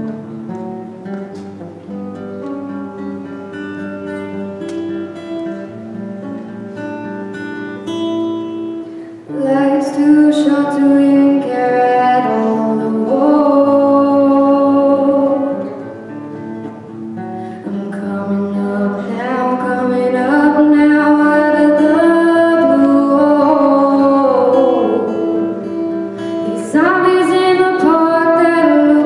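Live acoustic guitar strumming on its own, then a singer comes in loudly over it about a third of the way through. The voice breaks off briefly twice before carrying on.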